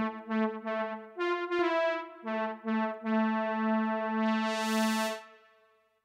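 Cherry Audio DCO-106 software synthesizer, a Juno-106 emulation, playing its 'Science Lead' preset: a short melodic lead phrase of quick notes, then one long held note that gains a hiss on top before fading out near the end.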